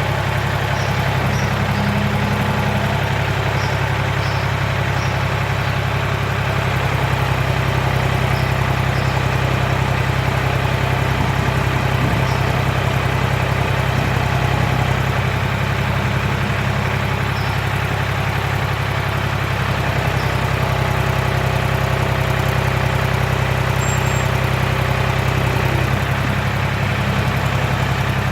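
John Deere 300B backhoe's engine running steadily, its pitch shifting slightly now and then.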